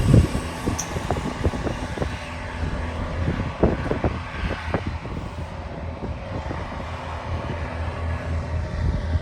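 Outdoor urban background: a steady low rumble of vehicle traffic, broken by irregular short low thumps.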